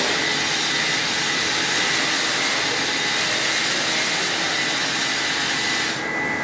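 Steady rushing noise of a running machine, with a faint high-pitched whine in it.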